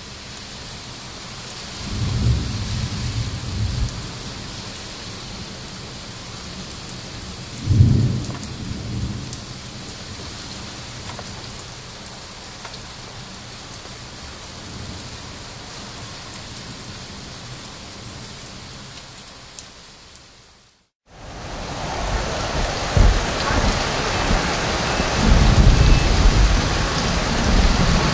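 Steady heavy rain hiss with low rolls of thunder, the strongest about 8 seconds in. Around 21 seconds in it drops out briefly, then a louder, denser rain-and-thunder sound-effects track comes in, with repeated deep rumbles.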